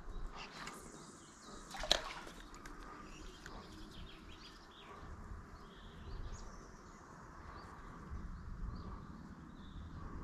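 Faint outdoor ambience: scattered small bird chirps over a low rumble, with one sharp click about two seconds in.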